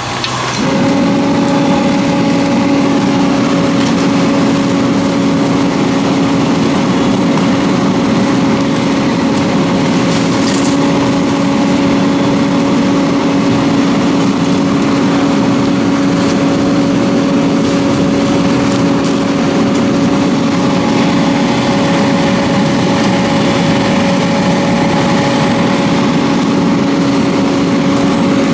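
Fire engine's engine and pump running steadily at one constant pitch while supplying a hose line, with an even rushing hiss of water spray underneath. The hum comes in abruptly just after the start.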